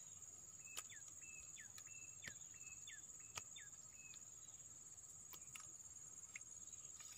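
Faint natural ambience: a steady high insect drone, with a run of short calls in the first few seconds, each dropping sharply in pitch.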